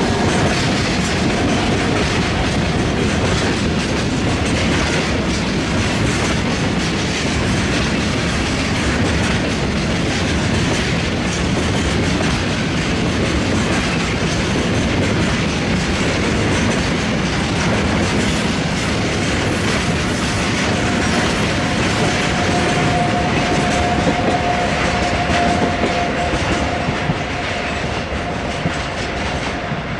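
Freight train of oil tank wagons hauled by an EF210 electric locomotive rolling past, a steady, loud rumble with the wheels clacking over the rail joints. A thin, steady high tone comes in for several seconds in the latter part.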